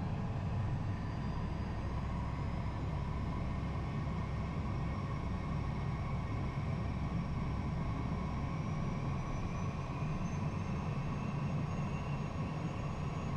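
Cockpit noise of a Cessna Citation I with Williams FJ44 turbofans rolling on the runway and turning off after landing: a steady engine and airflow rumble, with a faint whine that rises slowly in pitch.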